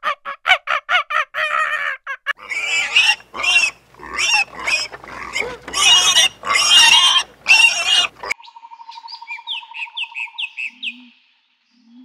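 Young domestic pigs squealing loudly in repeated harsh bursts for about six seconds. Before them, at the start, comes a quick run of short pitched calls. Near the end there is a fainter steady trill with a series of short falling chirps.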